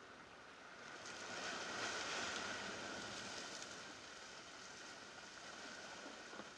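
Ocean surf washing up against shoreline rocks: a hiss that swells about a second in, peaks, and ebbs away over the next few seconds.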